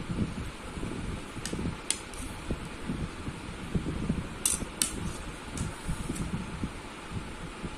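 Plates and cutlery clinking: two sharp clinks about a second and a half in, then two more about four and a half seconds in as a plate of chole is lifted and tipped. A low steady rumble runs underneath.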